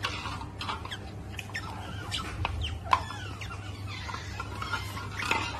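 Otters giving rapid, overlapping high-pitched squeaks and chirps, with one sharp click about three seconds in.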